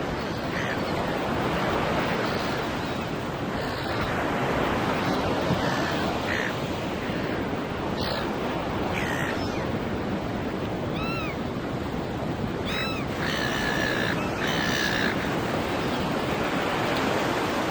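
Ocean surf washing steadily on a beach, with gulls calling now and then in short cries, most of them in the second half.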